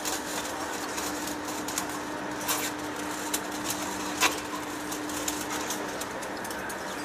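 Heavy-duty face lathe running: a steady hum over machine noise, with a few sharp clicks, the loudest about four seconds in.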